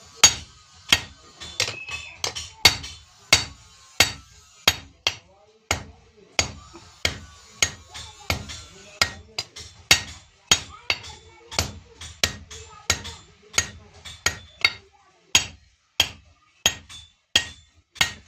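Blacksmith's hand hammer forging an iron blade on an anvil: a steady run of sharp blows, about two a second, each with a short metallic ring.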